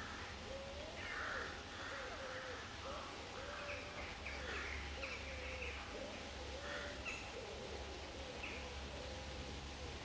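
Birds calling outdoors: a run of short, low curved notes repeating about every half second, with a few higher chirps, over a low steady background rumble.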